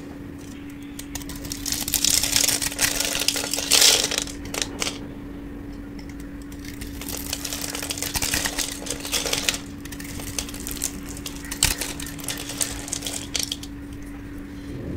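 A knife cutting through a dry bar of Nivea soap scored into small cubes, the cubes crunching and crackling as they break off and scatter. The crunching comes in three spells, the first the loudest.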